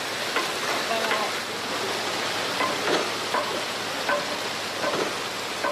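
Steady hissing, rushing noise like running water, with faint short sounds about once a second.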